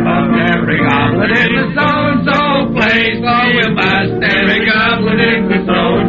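A group of men singing and shouting together in a rowdy chorus, on a narrow-band 1940s radio recording.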